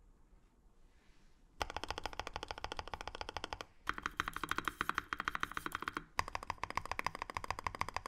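Custom Ogre 60% mechanical keyboard (aluminium case, UHMWPE plate, lubed Creampaca linear switches) struck in three fast rattling runs of key presses, fingers drumming in quick succession, with the middle run on the spacebar.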